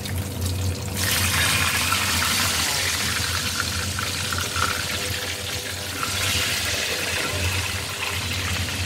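Curry-powdered fish steaks frying in hot oil in a wok: a steady sizzle that grows louder about a second in, over a low steady hum.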